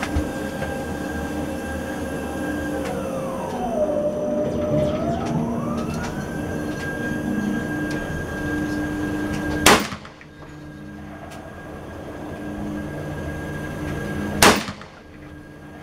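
Two single rifle shots from an AR-15 in .223 Remington, about five seconds apart, the first a little past the middle and the second near the end. Beneath them runs a steady hum with a high whine that slides down and back up in the first half.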